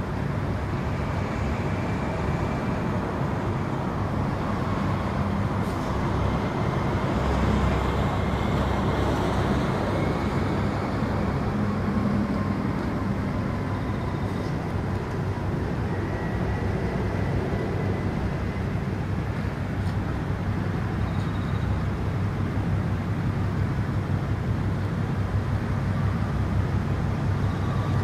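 Steady low mechanical drone with a continuous outdoor noise bed, unchanging throughout.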